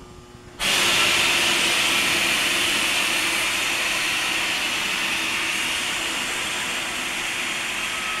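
Compressed air let off the mixer's pressurised tank, hissing out loudly from about half a second in and slowly easing off as the pressure bleeds down.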